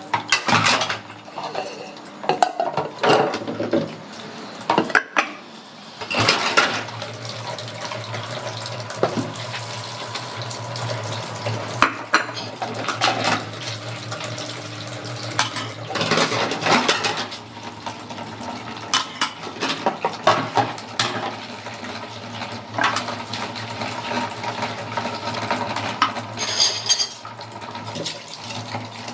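Dishes and cutlery clinking and knocking together as they are washed by hand in a sink, with tap water running.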